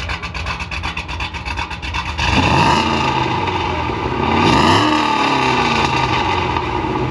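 Turbocharged Nissan 350Z V6 engine idling, then revved twice, about two seconds in and again around four and a half seconds, its pitch climbing and falling back each time.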